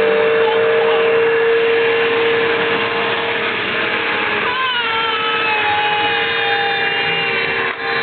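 Upright vacuum cleaner running steadily, with a constant whine over a noisy rush of air. About halfway through, a higher tone slides down a little in pitch and then holds steady.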